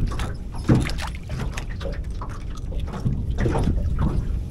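Small waves lapping and sloshing against a boat hull, with a steady low rumble of wind. Scattered clicks and a sharper knock about a second in come from handling a caught catfish and a fish grip.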